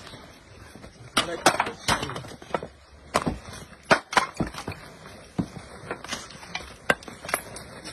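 Loose bricks and broken masonry knocking and clinking together as rubble is shifted by hand: a dozen or so sharp, irregular knocks.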